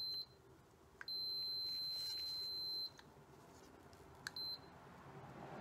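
Digital multimeter continuity beeper giving a steady high-pitched beep that switches on and off as an outboard fuel supply module's float switch is tilted: a long beep of about two seconds in the middle and a short one near the end. Each beep is the float switch closing its contacts, a sign that the switch is working.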